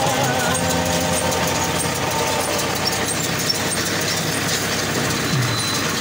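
Tractor engine running steadily together with a Bharat Baler 9060 round baler's machinery, a continuous mechanical noise.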